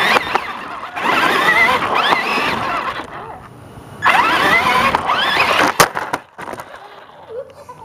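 Electric RC car's motor whining in two long stretches, its pitch repeatedly sweeping up with the throttle, over the rattle of its wheels on concrete. A sharp knock about six seconds in as the car flips over.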